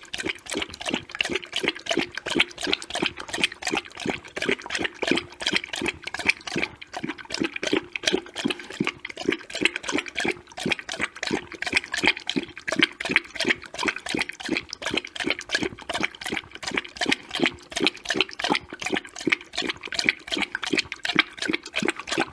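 Dog lapping up water, a quick, even rhythm of wet laps that carries on without a break.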